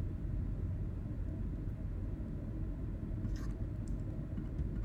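Steady low background rumble of room and microphone noise, with a faint click about three and a half seconds in.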